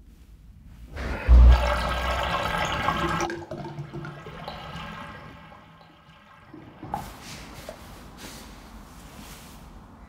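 Water rushing and gurgling down a drain, starting suddenly about a second in with a deep thud, loudest for a couple of seconds and then fading away.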